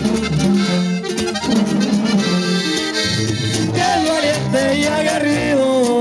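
Live band playing an instrumental break in a corrido: accordion carrying the melody over tuba bass notes and a strummed guitar, in a steady rhythm.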